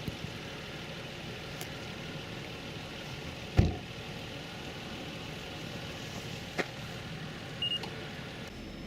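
Steady road and engine noise of a moving car, with one sharp thump about three and a half seconds in and a couple of lighter clicks later.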